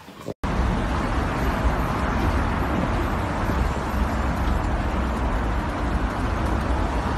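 Steady street traffic noise starting about half a second in: a deep rumble with a hiss over it and no distinct events.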